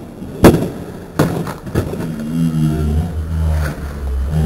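Three sharp knocks in the first two seconds, then a motor vehicle's engine running with a low hum that rises and falls slightly in pitch for the rest.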